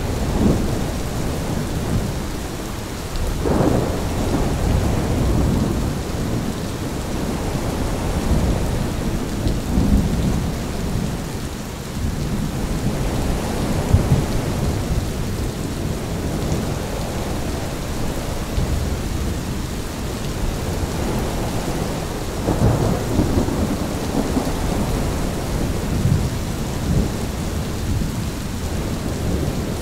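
Thunderstorm: steady heavy rain with gusting wind and low rolling thunder, swelling louder a few seconds in and again about 22 seconds in.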